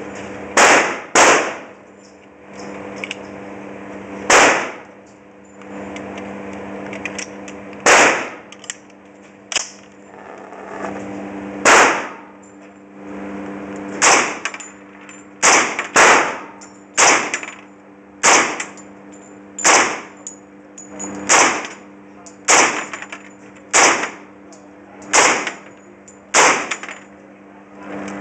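.45-calibre Heckler & Koch UMP-type carbine fired in single shots, about sixteen in all, each a sharp crack that rings off the walls of an indoor range. The shots come one to four seconds apart at first, then faster, about one every second or so, from about halfway through. A steady hum runs underneath.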